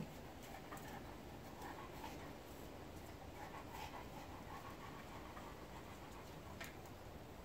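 A dog panting softly, with a few faint clicks.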